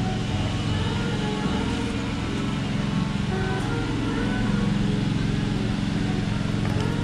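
A motor vehicle's engine runs with a steady low hum, with music faintly underneath.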